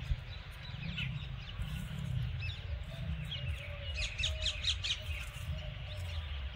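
Small birds chirping, with a quick cluster of high chirps about four seconds in, over a steady low rumble.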